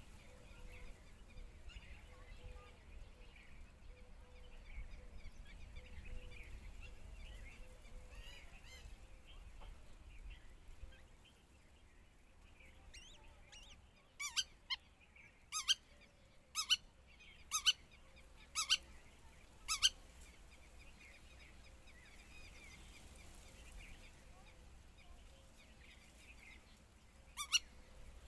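A bird giving a run of short, loud, sharp calls, about one a second, then two more near the end, over faint background chirping.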